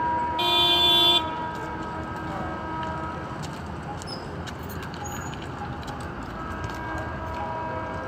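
Horn of an approaching WAP-7 electric locomotive: a loud blast in the first second, then the horn's steady tone carrying on more faintly.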